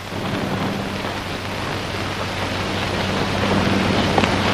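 Several horses riding in on dirt, their hoofbeats blending into a steady rumble that slowly grows louder, over the low hum of an old film soundtrack.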